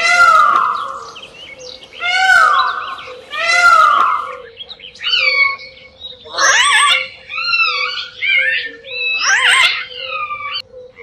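Animal calls: three loud harsh squeals, then from about four seconds in a run of shorter pitched calls that slide up and down.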